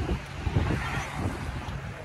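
Wind buffeting the microphone in uneven low gusts, with the wash of sea waves beneath.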